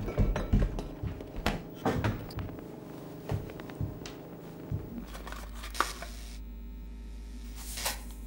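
Scattered small knocks and clatters of objects being handled, then a steady low hum setting in about five seconds in.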